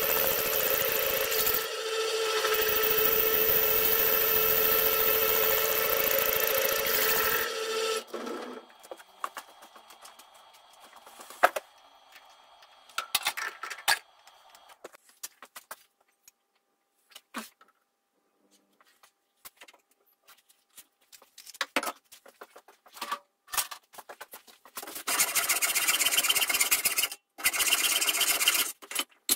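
A small bench-top metal lathe runs steadily and stops about seven seconds in. Scattered clicks and knocks of metal parts being handled follow. From about 25 seconds in, a hand tool rasps on metal in strokes.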